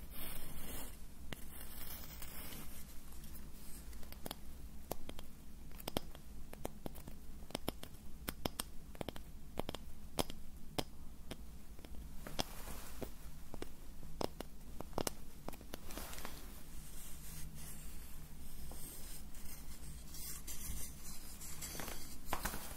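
Close-miked scratching and rubbing on an object, with many small irregular clicks and taps.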